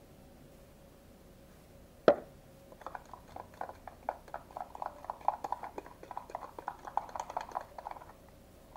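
A single sharp knock about two seconds in, then a stirrer scraping and clicking rapidly against the inside of a small cup as salt is worked into dish soap to make slime, stopping about eight seconds in.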